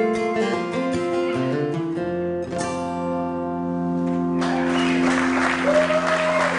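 A live band's closing guitar chords: a final chord struck about two and a half seconds in and left ringing. About four and a half seconds in, the audience breaks into applause over the ringing chord.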